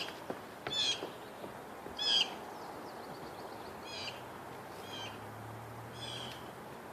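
A bird calling outdoors: short clusters of high chirping notes every one to two seconds, over a faint low hum.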